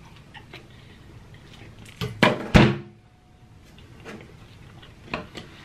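Two sharp thumps about two seconds in, the second the louder and deeper, amid an otherwise quiet stretch with faint small ticks.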